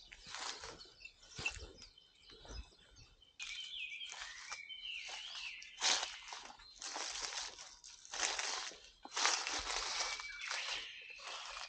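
Irregular rustling and crunching noises, which get suddenly louder about three seconds in, with bird chirps now and then.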